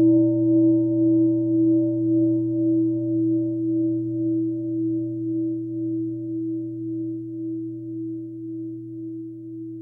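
A struck meditation bell ringing out: a low hum with a clear higher tone above it, fading slowly. Its loudness pulses about one and a half times a second.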